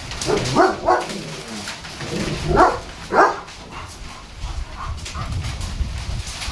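German Shepherd barking four short barks, in two pairs about two seconds apart, at the storm wind, over the low rumble of wind on the microphone.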